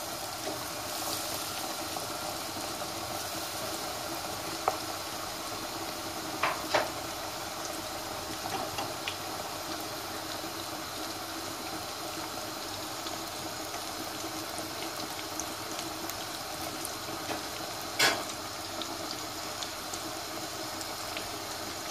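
Breaded chicken nuggets deep-frying in hot sunflower oil in a pot: a steady sizzle and bubbling. A few sharp clicks break through, the loudest about 18 seconds in.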